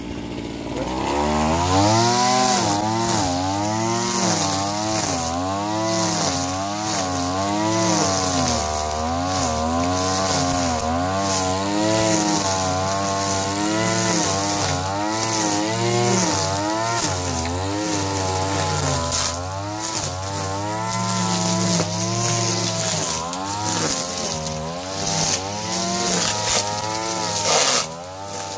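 Mitsubishi TL33 two-stroke brush cutter spinning serrated nylon trimmer line through thick grass. The engine speeds up about a second in, then its pitch rises and falls about once a second as the line bites into the grass and frees up again.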